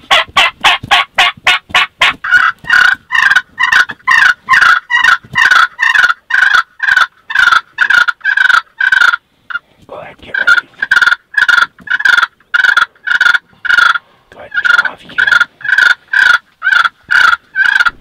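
Turkey calling in a long, even string of loud short notes, about three a second. The string breaks off briefly about nine seconds in, then starts again.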